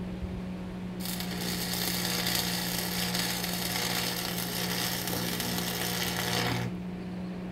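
Arc from a Lincoln 225 stick welder: the arc strikes about a second in, crackles and buzzes steadily for about five and a half seconds as a bead is laid on steel plate, then breaks off. A steady low hum runs underneath throughout.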